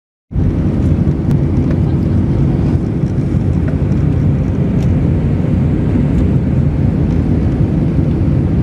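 Airliner cabin noise from a seat by the wing of an Airbus A320-family jet descending to land. Engines and airflow make a steady, dense rumble with a faint steady hum. It cuts in suddenly a moment in.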